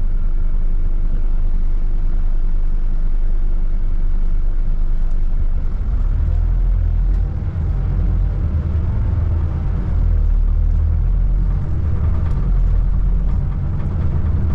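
Road vehicle on the move: a steady low rumble of engine and road noise, growing heavier about halfway through.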